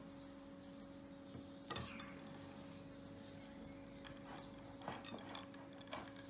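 Faint taps and clinks of a small plastic doll knocking against a glass tumbler of water as it is lowered in: a few scattered clicks, the clearest about two seconds in and a small cluster near the end, over a steady low hum.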